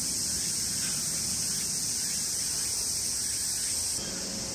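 A steady, high-pitched chorus of insects chirring outdoors at dusk.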